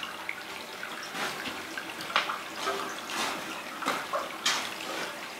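Seawater aquarium tanks with water running and splashing steadily, and several louder splashes about a second apart.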